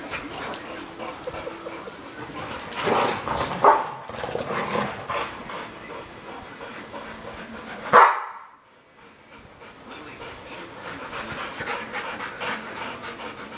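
Young American Bulldog making dog vocal sounds and panting as it wriggles about on a couch. About eight seconds in there is a sharp, loud burst, and the sound then drops almost out for about a second.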